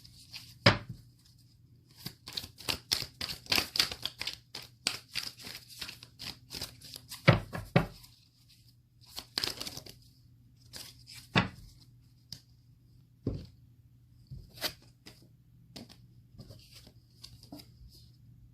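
Tarot cards being handled: quick papery flicks and rustles with a few sharper slaps as cards are shuffled and laid down. The flicking is densest in the first half, and single snaps follow now and then.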